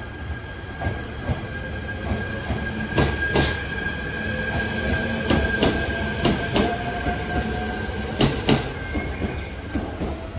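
Shinano Railway SR1 series 100-subseries electric train running past along the platform. Its wheels clack in quick pairs over rail joints, over a steady high tone and a motor whine that rises in pitch.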